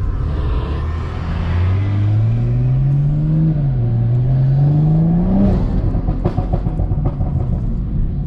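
BMW M340i's turbocharged 3.0-litre B58 inline-six accelerating hard through the gears. Its pitch climbs, dips at a shift about three and a half seconds in, then climbs again until the throttle is lifted about five and a half seconds in. A few short sharp clicks follow.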